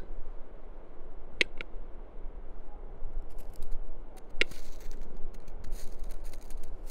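Male western capercaillie (wood grouse) in display, giving sharp dry clicks of its display song: a double click about a second and a half in, scattered fainter clicks, then another sharp click with a brief scratchy rattle past the middle.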